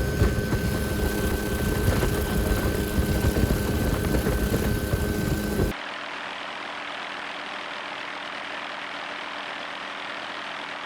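Helicopter engine and rotor noise, loud and steady with a fast low chop. About six seconds in it cuts abruptly to a quieter, even rushing noise.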